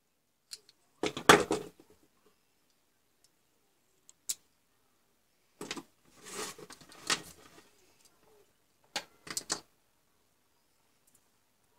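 Handling noise from the disassembled motor of a Dremel 3000 rotary tool: short bursts of clicking and rattling as the plastic stator housing, armature and a small screwdriver are handled. The loudest burst comes about a second in, another around six to seven seconds, and a few sharp clicks near the end, with single clicks between.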